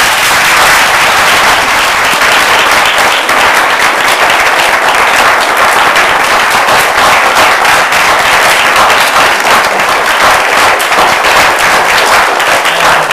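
Audience applauding: many hands clapping together in a dense, steady run of applause that holds at an even level throughout.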